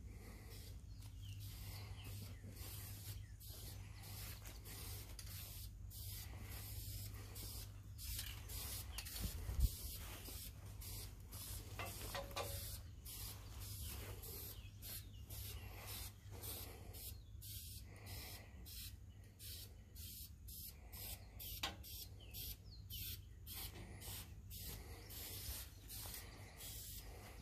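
Krylon aerosol spray-paint cans hissing in many short bursts that start and stop, over a low steady rumble.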